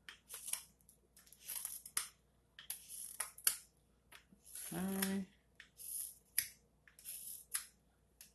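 Carving knife slicing shavings from a green cherry spoon blank: quick rasping paring strokes, about two a second, as the bottom rim of the bowl is cut. A short steady low tone sounds about five seconds in.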